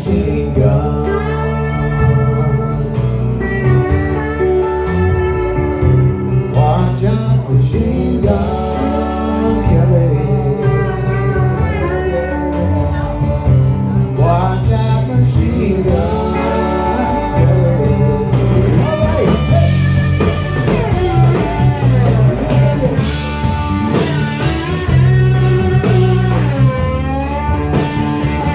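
Live blues-rock band playing an instrumental break: a lead guitar solos with bending, gliding notes over bass and drums.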